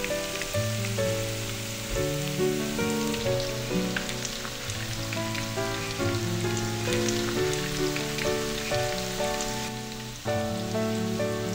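Soft instrumental background music over the steady crackle and spatter of battered vegetable strips deep-frying in hot oil.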